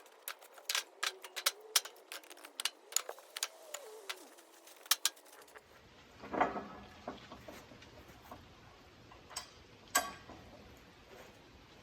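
A quick, irregular run of sharp clicks and light knocks for about five seconds, then a handful of scattered knocks, with a faint hiss between them.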